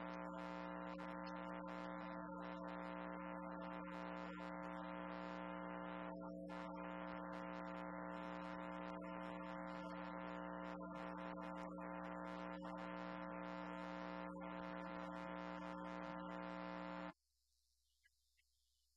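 Steady electrical hum and buzz, a stack of unchanging tones, that cuts off suddenly about 17 seconds in.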